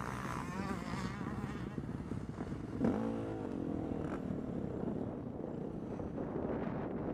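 Several motocross dirt bike engines running close by, with one revving sharply up and back down about three seconds in.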